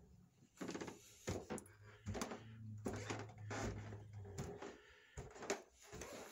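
Footsteps climbing carpeted wooden stairs: a run of soft, irregular thuds, about one or two a second, mixed with the rustle of the phone moving in hand.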